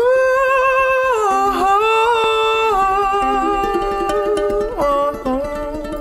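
Ukulele strummed in a steady rhythm under a wordless vocal melody of held notes that slide between pitches. The music cuts in abruptly at the start.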